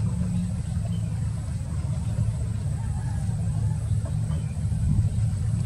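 Ship's engine running as a steady low drone.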